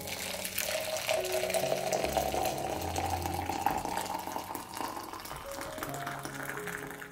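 Water poured in a steady stream into a glass teapot of loose green tea leaves, the pitch of the filling sound rising as the pot fills.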